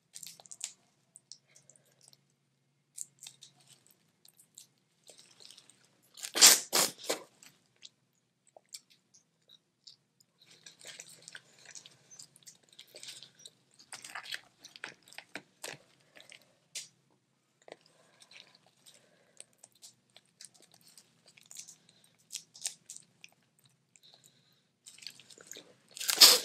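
Boiled crawfish being eaten close to the microphone: shells cracking and peeling, with chewing in between. There are two louder crackling bursts, about six seconds in and near the end.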